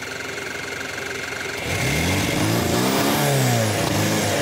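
Gasoline engine converted to a turbodiesel, with no glow plugs, cold-started with hot air from a heat gun and quick-start fluid. After a steady whir it fires about a second and a half in, revs up and falls back, and settles into a steady idle.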